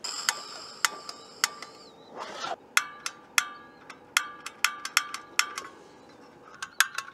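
Piezo igniter of a portable butane canister stove clicking again and again in quick, irregular runs, each snap with a short metallic ring. The burner does not light: the piezoelectric start has failed.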